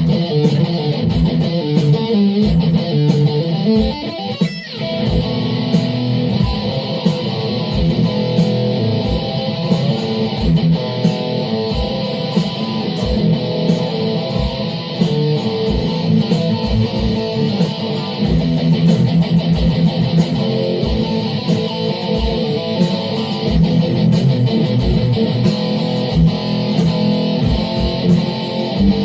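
Guitar improvisation, notes and strummed chords played over a steady low thump that comes about three times every two seconds. A brief rising sweep sounds about four and a half seconds in.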